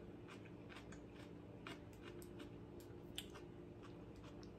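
Near silence: room tone with a few faint clicks.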